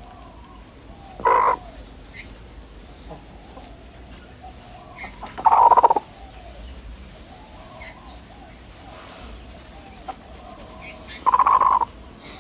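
Pet hens trilling: three short, louder rolling trills spaced about five seconds apart, with softer, quieter murmuring between them. The trill is the chicken's purr, a sign the hen feels safe, calm and content.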